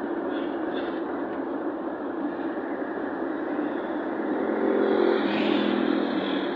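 Steady engine and tyre road noise inside a car cruising at highway speed, swelling louder for a second or two about two-thirds of the way through.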